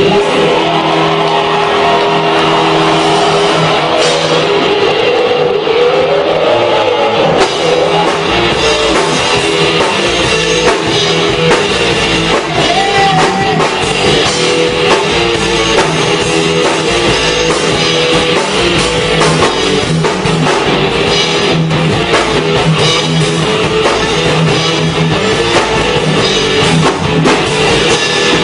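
Rock band playing, with drum kit and guitar.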